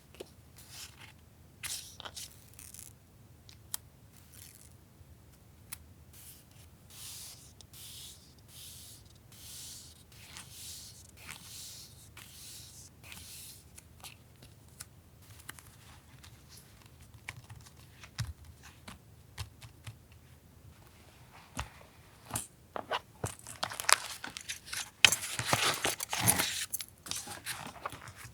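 Paper and packaging being handled: soft rustles and light taps, then a denser, louder stretch of crinkling and tearing near the end.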